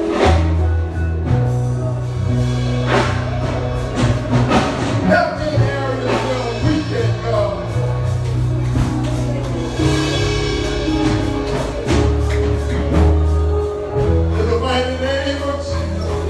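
Gospel music with singing over a band: held bass notes changing every second or two, under repeated percussion strikes.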